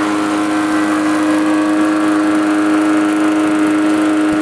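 Walk-behind lawnmower's small single-cylinder engine running steadily at an even speed, its timing restored by a new flywheel key. It runs smoothly, with none of the knocking or poor speeding-up that a sheared key gives.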